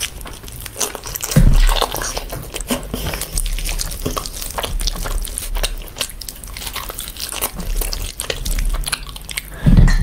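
Close-miked chewing and biting of mutton and biryani rice eaten by hand, with many short clicks and smacks throughout. Two low thumps stand out, about a second and a half in and near the end.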